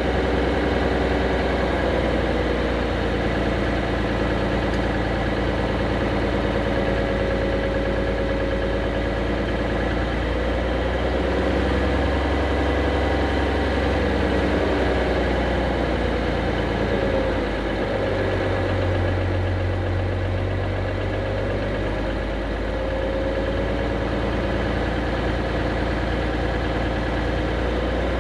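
Diesel engine of heavy earthmoving equipment running steadily, its pitch wavering a little, with a shift in the low drone partway through.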